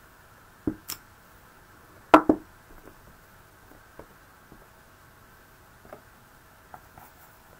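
Knocks and clicks of a plastic ink pad case and a clear acrylic stamp block being handled and set down on a wooden tabletop: two knocks just under a second in, a louder double knock at about two seconds, then a few light taps.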